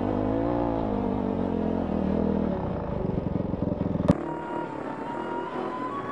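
Honda CRF250X dirt bike's four-stroke single-cylinder engine running, its pitch rising and falling with the throttle, then dropping to a low, rapid putter about two and a half seconds in. About four seconds in a sharp click breaks it off and the sound turns quieter.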